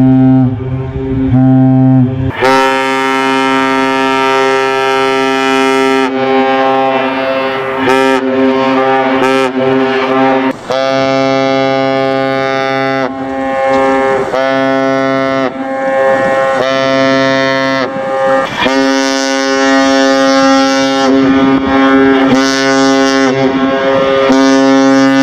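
Fednav cargo ships' horns sounding in turn: a string of deep, steady horn blasts, some long and some short, breaking off and starting again about a dozen times.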